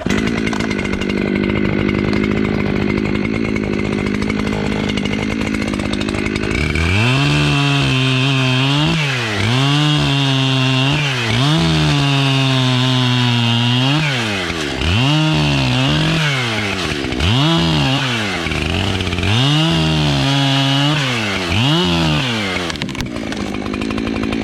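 Chainsaw bucking a felled tree into logs with a V-cut. It runs steadily at first, then from about six seconds in the engine note dips and recovers again and again as the chain bites into the wood. It settles back to a steady run near the end.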